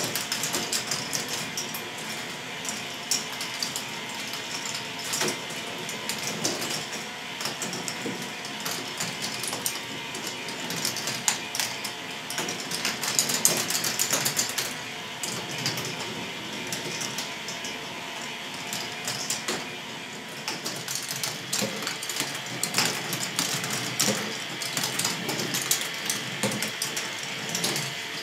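K'nex ball machine running: plastic balls clattering through its plastic tracks and lifts, with continual clicking and rattling over the steady whir of its motor-driven gears.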